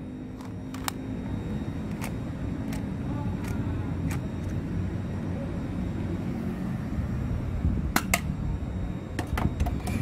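Scattered sharp clicks and snaps, about ten in all with a close pair near 8 seconds, from a low-budget HICAPA R-189 airsoft pistol being handled and fired, over a steady low rumble.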